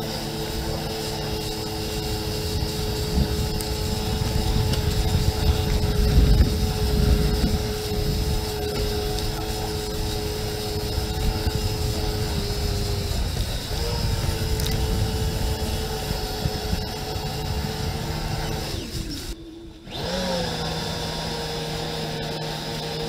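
WaveRunner personal watercraft running at speed over choppy water: a steady engine and jet-pump whine over the rush of spray and wind, with a louder burst of splashing and hull slap about six seconds in. The whine dips and climbs again about halfway through, then cuts out briefly near the end before revving back up.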